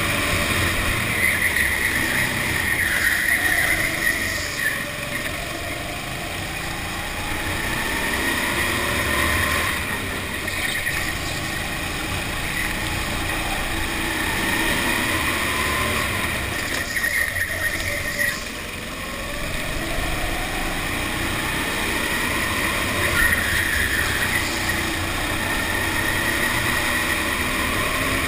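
Go-kart motor heard up close from the kart itself, running hard around a lap, its pitch falling into the corners and rising again on the straights several times over.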